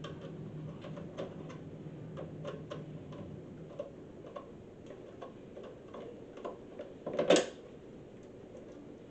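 Screwdriver working a case screw in a garage door opener's housing: a run of small, irregular clicks and ticks, with one louder clatter about seven seconds in.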